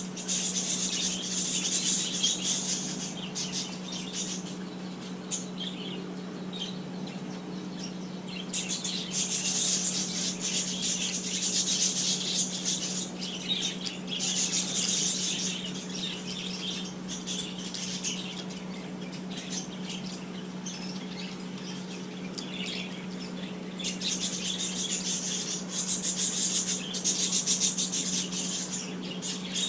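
Small birds chirping in bouts of a few seconds, over a steady low hum.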